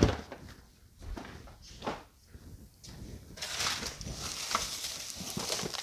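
Cardboard boxes of hand vacuums being handled and stacked: a sharp knock at the start, a couple of lighter knocks, then from about three seconds in a steady scraping and rustling of cardboard sliding against cardboard.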